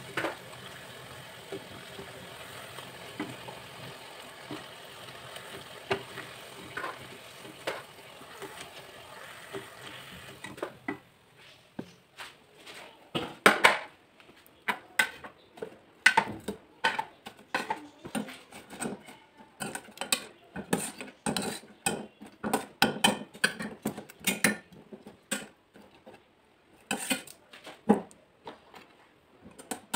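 Jalebis deep-frying in hot oil in a kadhai: a steady sizzle with a few spatula taps. The sizzle cuts off about ten seconds in. Irregular clinks and scrapes follow as metal blades lift syrup-soaked jalebis in a ceramic bowl beside a steel pan.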